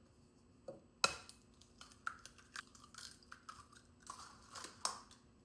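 Eggs being cracked on a bowl and opened: a sharp knock about a second in, then a scatter of small crackling ticks from the shells.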